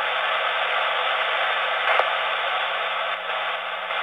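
Radio scanner receiving a narrowband FM transmission that carries no voice, only steady hiss, with a low steady tone underneath that matches the 186.2 Hz CTCSS squelch tone; a faint click about two seconds in.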